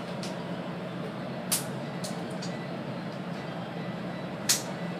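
Steady low hum inside a stationary electric train car, from its ventilation and onboard equipment running while it waits at the platform. Two brief sharp hissy clicks cut through, about a second and a half in and again near the end.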